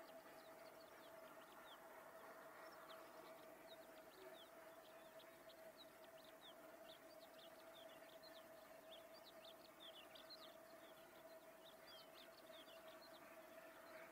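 Quiet rural dusk background: many faint, short, high bird chirps scattered throughout, over a faint steady hum.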